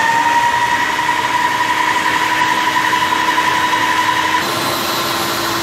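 Electric stand mixer running at high speed, its wire whisk beating eggs and sugar in the steel bowl, with a steady motor whine. The tone changes slightly about four seconds in.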